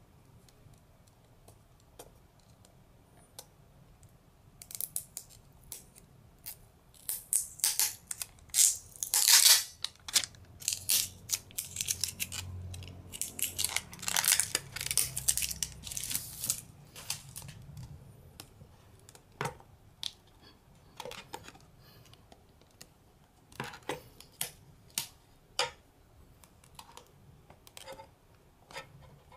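The packaging of an iPod touch being handled and opened by hand: a run of scratchy rustles and sharp clicks, busiest from about five to eighteen seconds in, then thinning to scattered clicks and taps.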